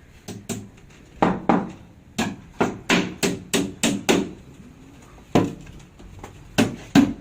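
Hammer nailing timber concrete formwork: runs of sharp strikes, about three a second, with short pauses between the runs.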